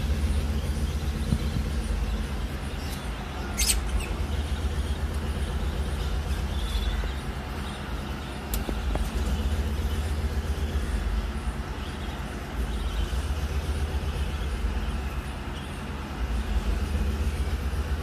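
Steady low rumble, with a few short high bird chirps over it; the clearest chirp comes about four seconds in.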